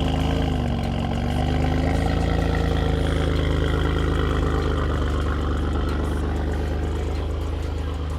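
BMW F80 M3's twin-turbo inline-six idling through a VRSF single midpipe, with the secondary cats and mid resonator removed. The idle dips about a second in, then picks back up and holds steady.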